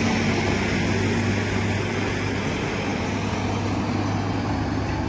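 Heavy diesel engine running with a steady, low drone.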